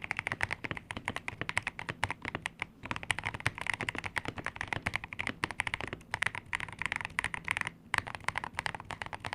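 Fast typing on a KBD67 Lite custom mechanical keyboard with lubed Boba U4T tactile switches, modded for a deeper 'thocky' sound: a dense run of keystrokes with a few brief pauses.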